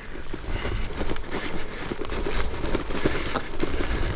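Bicycle riding over a rough dirt trail: dense, irregular crackling and rattling from tyres and bike over the ground, with a low wind rumble on the microphone.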